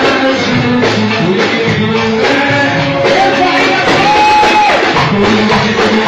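Loud Egyptian sha'bi wedding music: a melody of held notes over a steady percussion beat.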